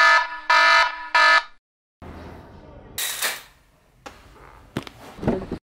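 Smartphone alarm ringing: three short pulses of a bright tone with many pitches, a wake-up alarm. It stops after about a second and a half and gives way to a quieter noisy stretch, with a brief whoosh about three seconds in and a few clicks near the end.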